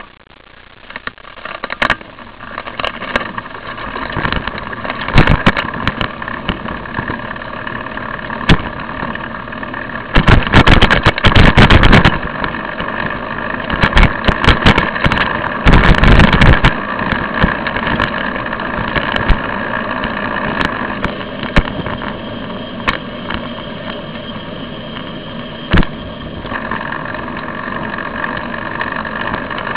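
Riding noise picked up by a camera mounted on a moving bicycle: wind and road rumble that build over the first few seconds as the bike gets going. Sharp knocks and rattles from bumps run through it, loudest in dense bursts about a third of the way in and again about halfway.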